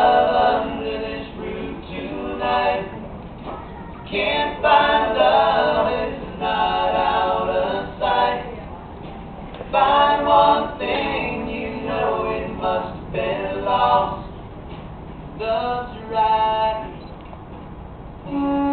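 Live band performance in a largely a cappella passage: several voices singing together in harmony, in phrases separated by short gaps.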